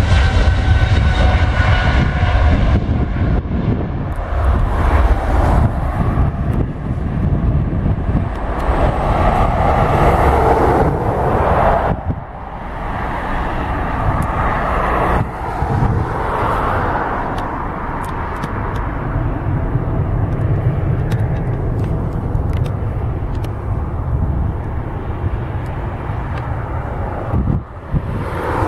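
Boeing 777-300ER's two GE90-115B turbofans running at takeoff thrust as the jet rolls past and climbs away: a loud continuous jet noise with a deep rumble and a whine over it at first. The sound changes abruptly a few times, at about 12 and 15 seconds in, where the footage is edited.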